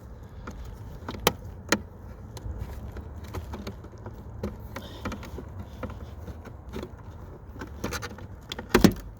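Screwdriver prying a Honda CR-V side mirror glass off its plastic retaining clips: two sharp clicks early on, then small scrapes and ticks, and a loud snap near the end as the glass comes free. A low steady hum runs underneath.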